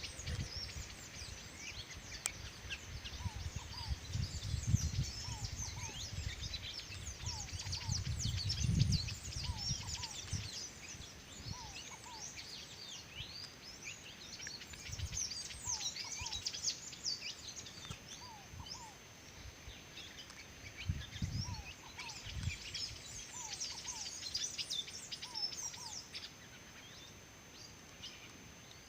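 Many birds chirping and twittering in fast, dense high notes, with a lower two-note call repeating every second or two. Low rumbles come and go underneath, heaviest in the first ten seconds.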